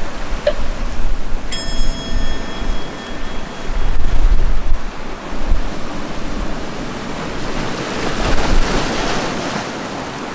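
Sea waves surging against a rocky shore, with wind buffeting the microphone as a low rumble. A louder wash of surf builds near the end. A brief high ringing tone sounds about a second and a half in.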